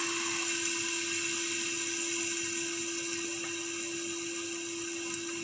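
Chicken frying in a covered pan, a steady hiss, under a constant steady hum.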